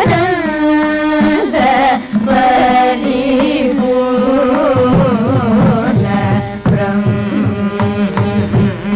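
Carnatic classical music: an ornamented melody with gliding, wavering notes, sung over a steady drone, with hand-drum strokes underneath.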